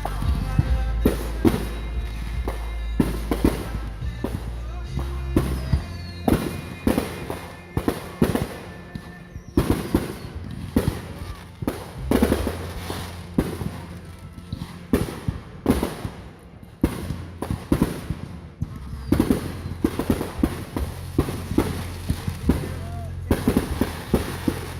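Fireworks display: an irregular run of sharp bangs and crackling bursts over a deep rumble. The bangs come thickest at first, thin out around the middle, and build up again near the end.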